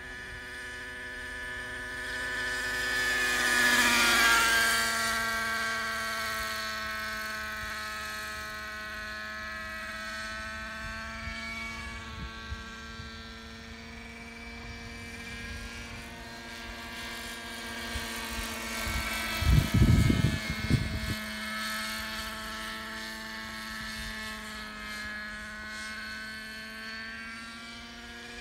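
Hirobo Freya radio-controlled model helicopter flying overhead, a steady whine of engine and rotor with many overtones. It swells and drops in pitch as the helicopter passes close about four seconds in, then carries on more quietly. A brief low rumble about two-thirds of the way through is the loudest moment.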